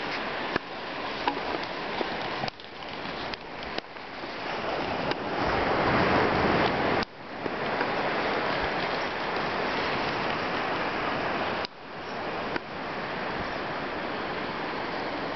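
Steady rushing of ocean surf, with several sudden drops in level that swell back up.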